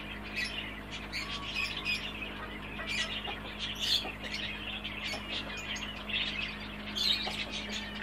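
Caged pet birds squawking and chirping, many short calls overlapping continuously, with a steady low hum underneath.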